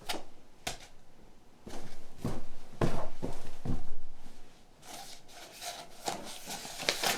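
A run of soft knocks and rubbing or scraping noises, loudest and most frequent in the middle, then fainter.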